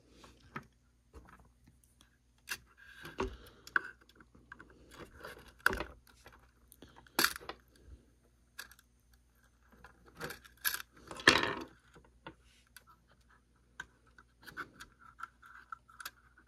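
Small model-locomotive detail parts clicking, tapping and scraping as they are handled and pushed into place by hand: scattered, irregular clicks and scrapes, the loudest about eleven seconds in.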